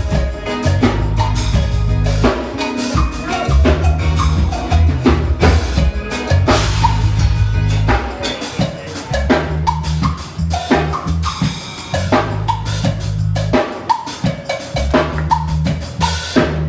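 A band playing loudly, with a drum kit, bass drum and snare hits driving the beat over sustained low bass notes. The music stops abruptly near the end.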